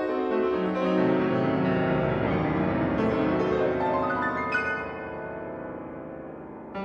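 Solo piano playing a fast run of notes down the keyboard, then a run back up, ending on a held chord that fades.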